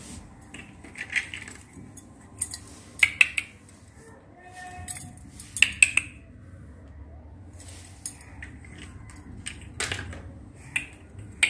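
Small plastic toy teacups being set down on plastic plates and saucers: light clicks and clatter, singly and in quick clusters, scattered throughout.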